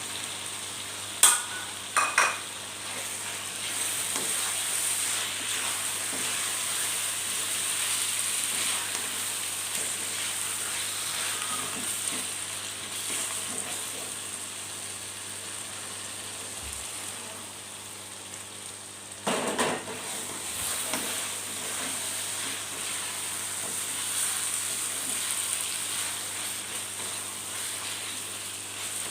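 Balado chili mixture with freshly added spring onions sizzling in a frying pan while it is stirred, the spatula clinking sharply against the pan about a second in, again a second later, and in a short clatter around twenty seconds in.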